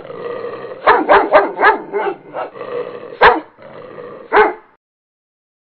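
A dog barking: a quick run of five or six barks, then two more spaced about a second apart, over a steady background, stopping about five seconds in.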